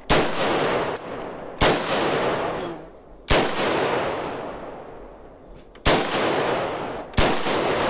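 Kalashnikov assault rifle firing five single shots at uneven intervals of one to two and a half seconds, each shot's echo dying away slowly before the next.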